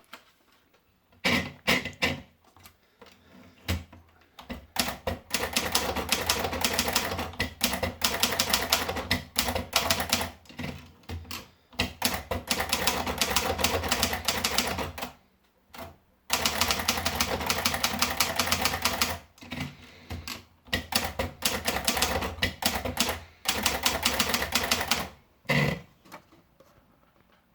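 Hermes Baby portable manual typewriter being typed on: fast runs of key strikes separated by short pauses.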